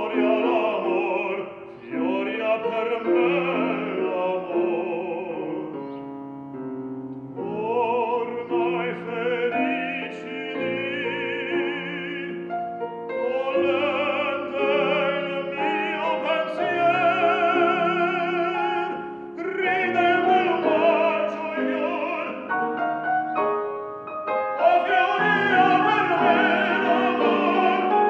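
Operatic tenor singing an Italian aria with strong vibrato over grand piano accompaniment. He sings in long phrases with brief pauses between them, and the music grows louder near the end.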